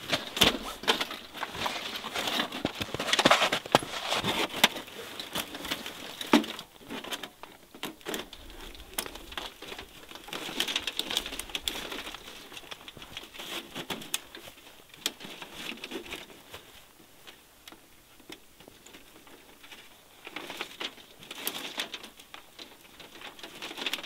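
Tent fabric rustling, with light metallic clicks and scrapes as a thin metal stove pipe is worked through the tent's stove jack and seated on a titanium mini wood stove. Busiest and loudest in the first few seconds, quieter in the middle.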